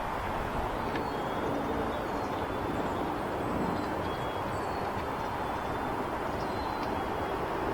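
Steady noise of busy highway traffic, with faint, short, high bird calls scattered through it.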